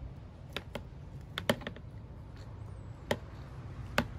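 Scattered sharp plastic clicks, about six at uneven intervals, as thin black drip-irrigation tubing is pushed and worked by hand onto a plastic T-connector.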